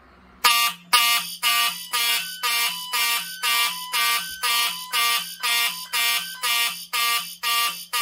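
Fire alarm horns from Wheelock and Simplex notification appliances start about half a second in and sound in a steady pulse, about two blasts a second. The system has gone into alarm because a Silent Knight SK Photo W smoke detector was tripped with a test magnet.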